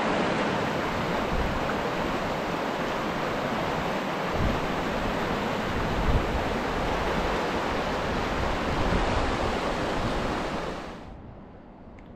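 Fast mountain creek rushing over rocks and gravel, a steady loud rush that cuts off suddenly near the end.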